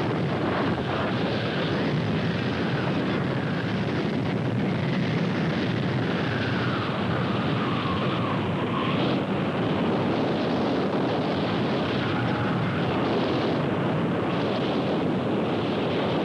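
Steady roar of a large tornado at close range, with wind rushing over the microphone. A faint falling tone sounds through it about halfway through.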